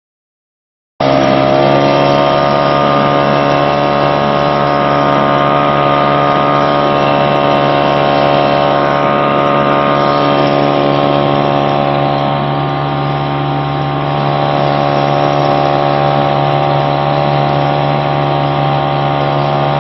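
Johnson 3.3 HP two-stroke outboard motor running steadily under way at cruising speed. The sound comes in suddenly about a second in.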